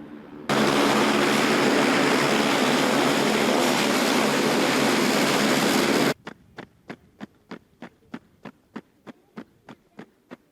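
Loud, steady aircraft engine noise that starts suddenly about half a second in and cuts off abruptly about six seconds in. It is followed by a quieter run of sharp, evenly spaced clicks, about three a second.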